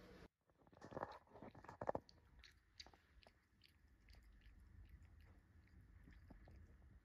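American Shorthair cat licking water off its front paw: a quiet run of small wet clicking licks, a few per second, with a louder cluster about one to two seconds in.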